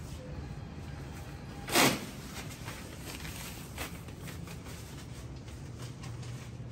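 Steady low hum of a tiled restroom, broken about two seconds in by one loud sharp knock, with a few faint clicks after it.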